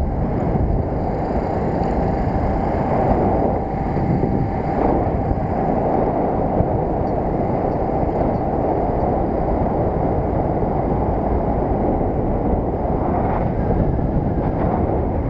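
Wind rushing over the microphone of a small underbone motorbike on the move, with its engine running steadily underneath.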